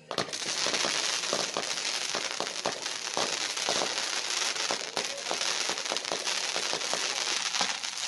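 Consumer fireworks batteries firing: a dense crackle with many sharp pops over a continuous hiss, starting abruptly.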